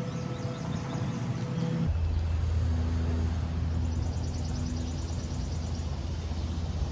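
A steady engine hum, like a motor vehicle running nearby, that drops to a lower, heavier pitch about two seconds in and holds steady. Faint rapid high-pitched chirping sounds twice behind it.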